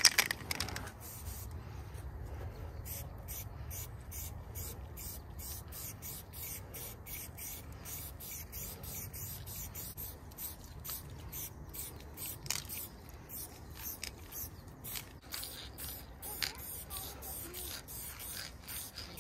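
Aerosol spray paint can hissing in many short bursts as paint is sprayed onto a board, after a sharp click at the very start.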